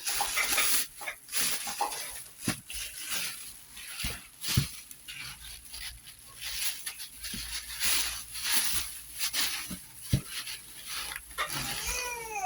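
Rustling and crinkling of packaging, with scattered knocks as items are handled and taken out of a box. A brief high-pitched sound that rises and falls comes near the end.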